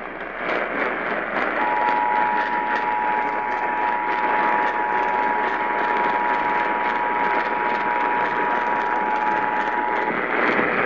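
Emergency Alert System two-tone attention signal over AM radio: two steady tones sounded together for about eight and a half seconds, starting about a second and a half in, over constant AM static hiss. It announces an emergency alert, here a severe thunderstorm warning.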